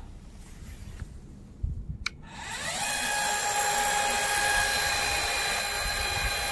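Small electric motor of a Vigorun VTC550-90 remote-control mower's cutting-deck height adjuster. After a sharp click about two seconds in, it whines up in pitch and then runs at a steady high whine, raising or lowering the deck.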